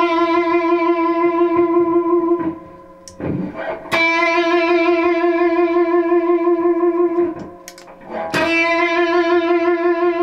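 Overdriven electric guitar, a Gibson Les Paul through a Dude Screamer overdrive pedal on its compressing, sustain-adding clipping setting, holding long single notes with vibrato. The same note rings for several seconds, stops about two and a half seconds in, and is picked again about four seconds and eight seconds in, showing off the pedal's sustain.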